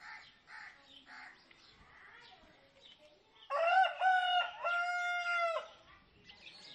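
A rooster crowing once, about halfway through: a loud cock-a-doodle-doo in three parts, the last note held longest. Before it, a few short, faint bird calls.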